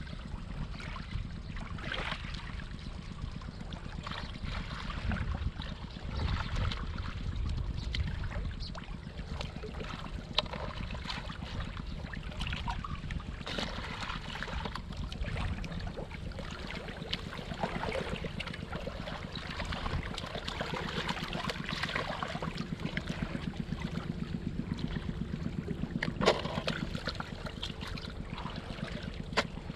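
Shallow muddy water sloshing and trickling as hands dig through it for clams, with small irregular splashes and a few sharp knocks, over a steady low wind rumble on the microphone.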